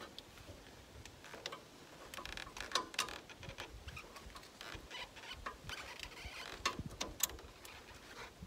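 Hydraulic hoses and fittings being handled and connected by hand: scattered light clicks, taps and rustling, with the sharpest clicks about three seconds in and again about seven seconds in.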